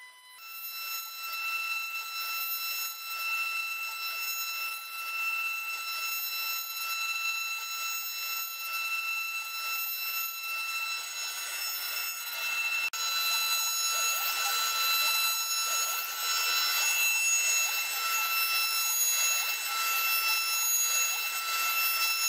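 CNC router spindle running at about 20,000 RPM with a steady high-pitched whine, its 1/2-inch ball-nose bit cutting the finishing pass on a turning Douglas fir blank with a hiss of cutting. The sound grows louder a little past halfway.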